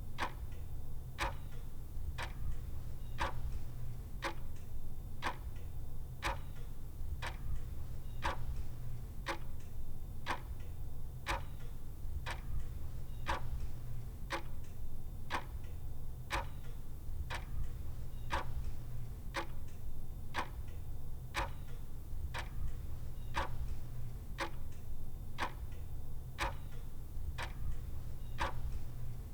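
Clock ticking steadily, about two ticks a second, over a steady low hum.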